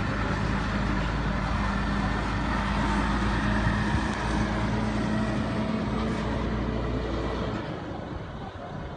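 Heavy tractor-trailer truck driving past, its engine making a steady low drone that fades about seven and a half seconds in as it moves away.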